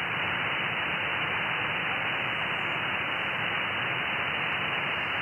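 Steady hiss of band noise from an Icom IC-7610 transceiver's receiver, tuned to upper sideband on the 17-metre band, with no station answering the CQ call. The hiss is narrow, with nothing above about 3 kHz where the receive filter cuts it off.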